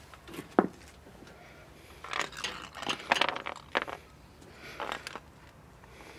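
Light metal clinks and scrapes as a cut-off steel control cable and its coil spring are picked up and moved about on asphalt. There is one sharp click about half a second in, then a cluster of clinks and scrapes from about two to four seconds, and a few more near the end.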